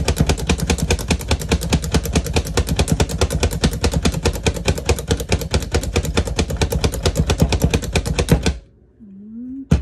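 Hand-pumped plunger food chopper being pumped rapidly, its plastic plunger clacking and the rotating blades chopping garlic cloves, at about six strokes a second. The pumping stops abruptly near the end.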